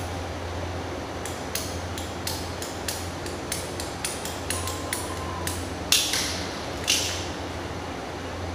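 Blue PVC water pipes and fittings being handled and fitted together: a string of sharp plastic clicks and taps, with two louder knocks about six and seven seconds in, over a steady low hum.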